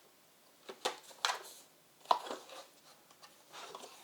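Handling noises from a robot vacuum: a few light clicks and knocks, the loudest about two seconds in.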